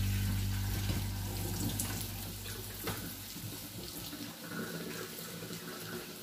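Kitchen tap running into a sink while cherry tomatoes are rinsed under it. A low steady hum fades away over the first three seconds.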